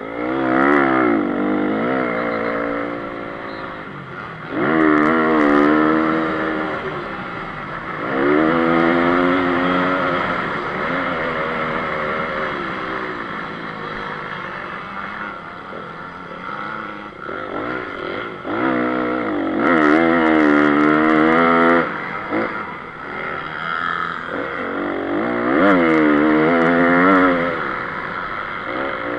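Honda CRF 250 single-cylinder four-stroke motocross engine heard from on board, revving up hard under full throttle and dropping back when the throttle closes. This happens about five times, every few seconds.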